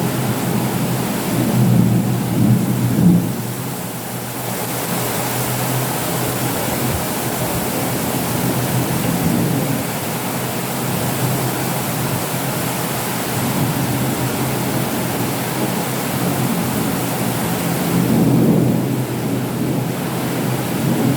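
Steady rain with low rolling rumbles of thunder, one swelling about two seconds in and another near the end.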